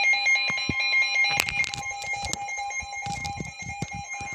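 Emergency Alert System two-tone attention signal: a steady dual-pitched electronic alert tone, with scattered clicks and knocks over it. The higher of the two tones cuts out about a second and a half in, and the lower tone carries on.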